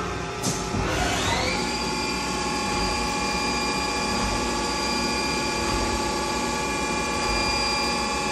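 Haas ST-20 CNC lathe spindle spinning up: a knock about half a second in, then a whine that climbs in pitch for about a second and settles into a steady high whine with several tones over the machine's running noise as the spindle holds speed.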